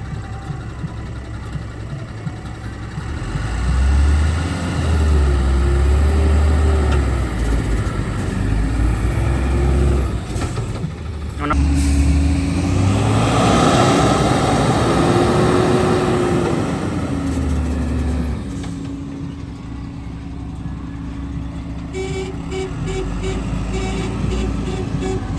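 Heavy diesel engine running and revving up and down under changing load several times, with a sharp click about eleven seconds in. Near the end a rapid pulsing beep comes in.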